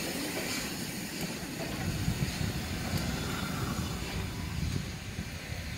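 Passenger coaches of a steam-hauled train rolling past close by: a steady low rumble of wheels on rails that grows louder about a second and a half in.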